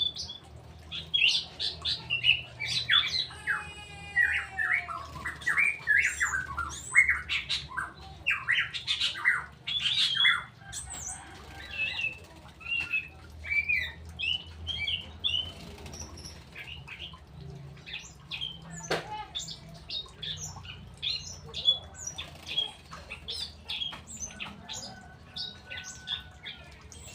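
Straw-headed bulbul (cucak rowo) calling and singing in short, bright notes, busiest in the first ten seconds and sparser after, over a faint low hum. A single sharp knock comes about two-thirds of the way through.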